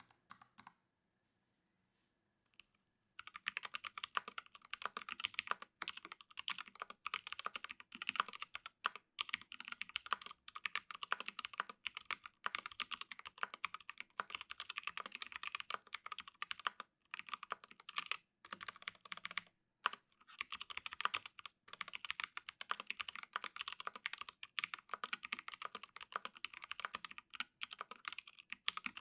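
Typing on an Alice-layout mechanical keyboard with an acrylic case and acrylic half plate, T1 tactile switches lubed with Krytox 205g0, and PBT Cherry-profile keycaps. It is a fast, dense run of keystroke clacks that starts about three seconds in, with a couple of brief pauses.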